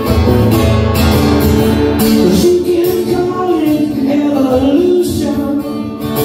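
Acoustic guitar strummed steadily, with a man's voice holding one long, wavering sung note in the middle.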